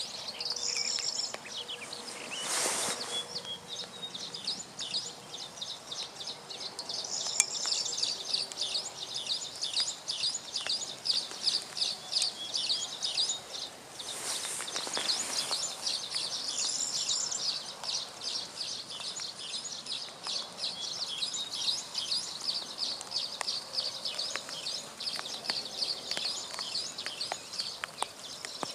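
Birds calling in a meadow: a dense, continuous run of short high chirps, with a few rising-and-falling call phrases over it. Twice, near 3 and 15 seconds in, a brief rush of noise sweeps across it.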